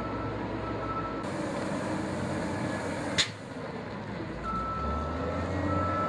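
Diesel engine of a self-propelled chip seal spreader running steadily, with a backup alarm beeping on and off. A single sharp click about three seconds in.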